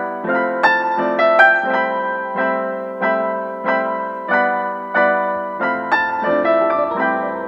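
Background piano music: soft chords struck at a steady pulse, about three every two seconds.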